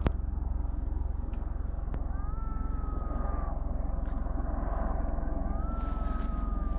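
A duck calling twice, two drawn-out whistled calls, each rising briefly and then held and slowly falling: a duck mating call. Under them runs a steady low rumble, with a sharp click at the start and another about two seconds in.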